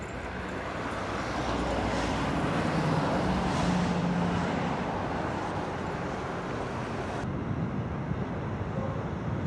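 Steady outdoor city noise with a distant traffic rumble, and a low engine hum that swells briefly about three seconds in. The high hiss drops away about seven seconds in.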